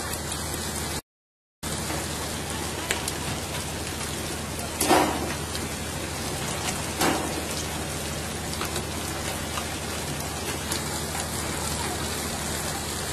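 A steady hiss with faint scattered ticks, like rain or spray, over a low hum. The sound drops out completely for about half a second a second in. Two louder knocks come about five and seven seconds in.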